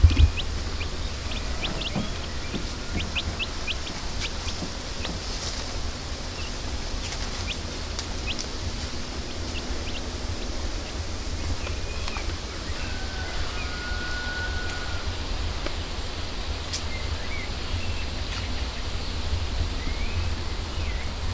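Small birds chirping, many short separate chirps throughout and one held whistle about two-thirds of the way in, over a low fluttering rumble of wind on the microphone.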